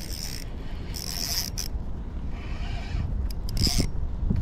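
Shimano Stratic FM spinning reel's drag letting line slip in several short bursts, each a fraction of a second, as a hooked fish pulls against it.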